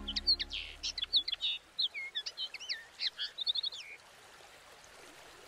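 A small songbird singing a quick, varied phrase of chirps, slurred whistles and a rapid trill, which stops about four seconds in. A faint steady outdoor hiss remains.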